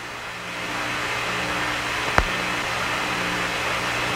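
Steady rushing noise with a faint low hum, building over the first second and then holding. A single sharp click comes about two seconds in.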